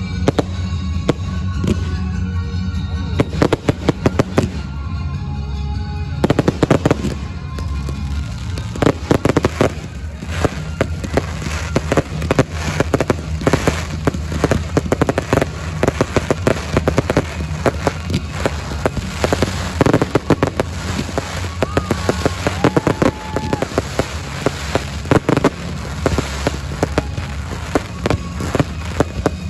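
Aerial fireworks display: a dense, unbroken run of bangs and crackling from bursting shells, with a steady low rumble underneath.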